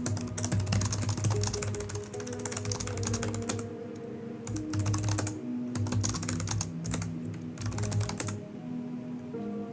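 Typing on a computer keyboard: rapid key clicks in bursts with short pauses, thinning out near the end. Background music with held low notes plays underneath.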